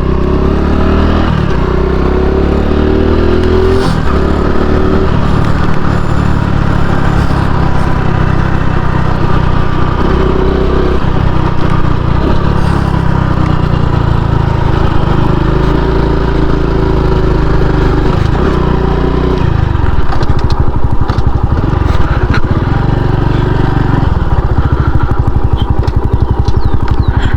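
Honda Pop 110i's single-cylinder engine running as the motorcycle is ridden, its speed rising and falling several times. In the last several seconds it drops to a lower, more pulsing run.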